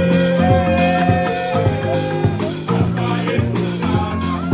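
Marimba band playing live: many struck wooden-bar notes with short decays, from deep bass notes up to high ones, in a steady rhythmic groove.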